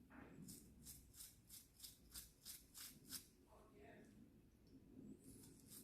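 Near silence with faint, even rubbing strokes, about three a second, that stop about three seconds in and briefly return near the end.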